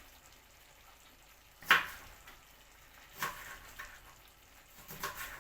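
Pan of chicken and onions sizzling in a few short bursts: a strong one a little under two seconds in, smaller ones after, otherwise fairly quiet.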